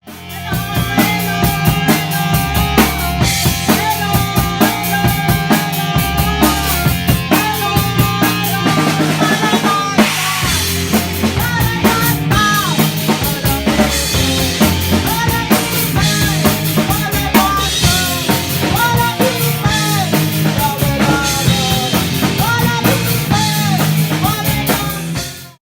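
A band playing: drum kit keeping a steady beat with bass underneath and a melody line on top. The music stops abruptly near the end.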